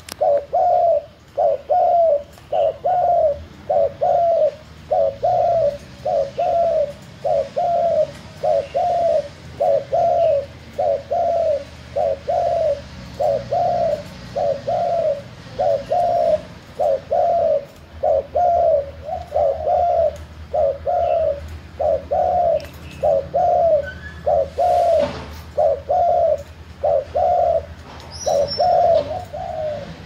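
Spotted dove cooing over and over: a long, unbroken run of short, low coos at about two a second.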